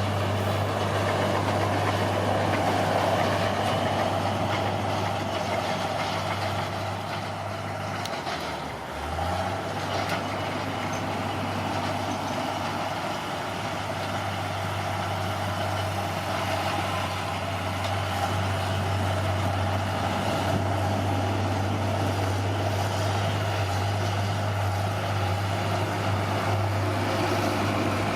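Bulldozer's diesel engine running steadily. Its pitch dips briefly about nine seconds in, then picks back up.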